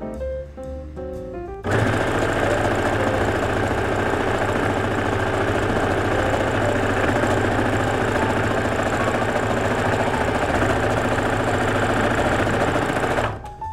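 Brother Innovis NV2600 sewing machine running at a steady speed as it stitches a double-folded linen hem, starting suddenly about two seconds in and stopping abruptly shortly before the end.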